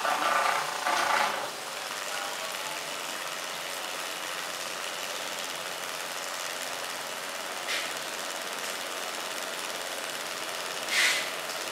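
12-volt DC oil transfer pump running steadily on a 12 V 7 Ah battery, pushing thick cooking oil through a hose into a plastic jerrycan.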